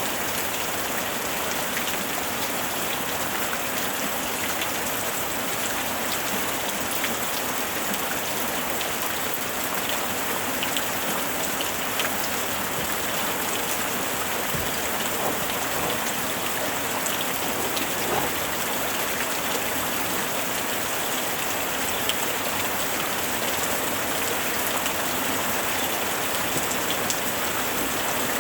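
Steady rain falling on a surface, with a dense hiss and scattered individual drops ticking through it.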